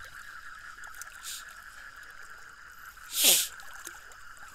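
Water splashing once, briefly, about three seconds in, as someone wades through a river in the dark. Under it runs a steady high-pitched drone.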